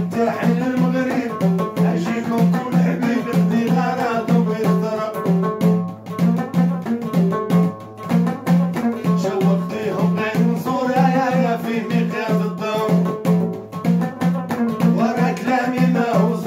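A man singing a Moroccan folk song, accompanying himself on a plucked lotar, a long-necked lute with a skin-covered body, over a steady low pulse about three times a second.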